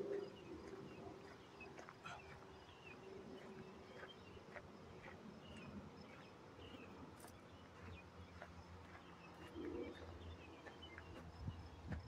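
Faint outdoor ambience of scattered short bird chirps and calls, over a low background rumble that grows stronger in the second half.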